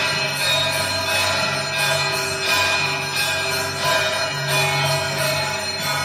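Hindu temple bells ringing continuously, struck over and over so that many metallic tones overlap and keep sounding. A low hum comes and goes underneath.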